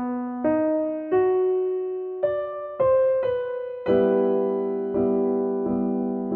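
Background piano music: a slow line of single struck notes that ring and fade, then fuller chords repeated about once a second from about four seconds in.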